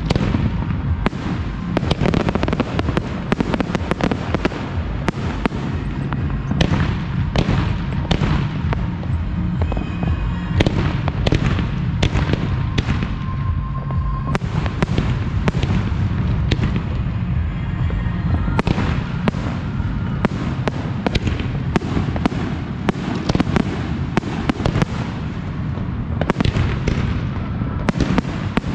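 Professional fireworks display in full swing: shells bursting in rapid, overlapping succession, a dense run of sharp reports over a constant low rumble.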